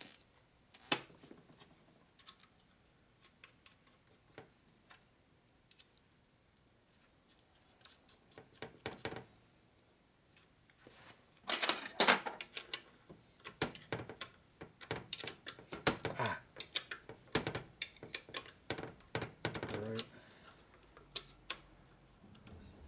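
Hand tools and small metal parts clinking against a metal-topped workbench and a transmission case as the cover fasteners are fitted. Sparse light clicks give way to a sharp clatter about halfway through, followed by a quick run of ticks and clinks.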